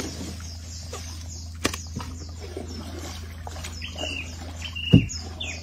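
Paddling a wooden canoe on a river: a sharp knock about a second and a half in and a heavier low thump near the end, the loudest sound, against a steady low hum. From about four seconds a bird chirps in short repeated notes.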